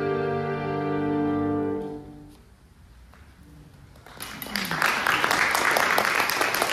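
A violin, viola, cello and harmonium hold a final sustained chord that dies away about two seconds in. After a short hush, the audience breaks into applause, which carries on to the end.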